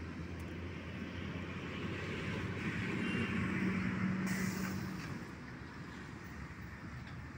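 A motor vehicle's engine passing, growing louder to a peak around the middle and then fading, with a brief hiss a little after four seconds in.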